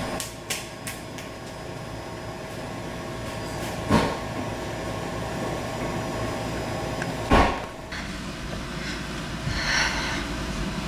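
Minivan door thudding shut twice, about three and a half seconds apart, over a steady hum.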